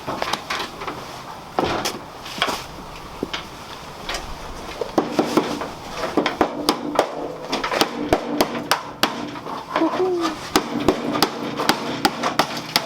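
Repeated sharp hammer-like taps and knocks, coming faster from about five seconds in, when a steady low hum also starts beneath them.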